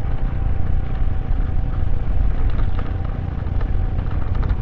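Wind noise on the microphone over the steady hum of a motor scooter's engine while riding.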